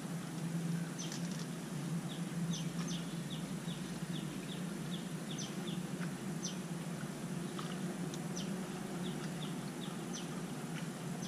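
Small birds chirping now and then, short high calls scattered throughout, over a steady low hum.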